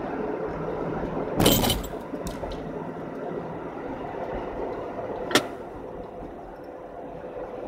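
Car driving, heard from inside the cabin: steady tyre and engine noise. A brief loud knock or bump comes about a second and a half in, and a sharp click about five seconds in.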